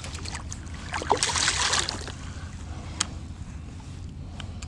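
Hooked catfish splashing at the surface beside an inflatable boat: a burst of splashing about a second in that lasts about a second, then a single sharp click.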